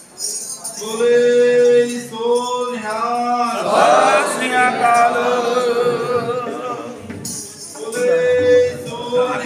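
Men singing a Sikh devotional hymn unaccompanied: a single voice leads a line, then a group of voices takes it up, and the lead voice comes back near the end.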